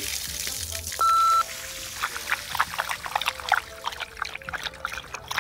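Water pouring out of the ankle of a wetsuit leg and splattering onto concrete, in uneven splashes and drips. A short, loud electronic beep about a second in.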